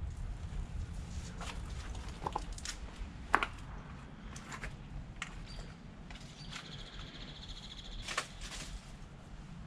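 Footsteps crunching on loose stones, twigs and leaf litter, over a low steady rumble. From about two-thirds of the way in, a high, steady animal call lasts about two seconds.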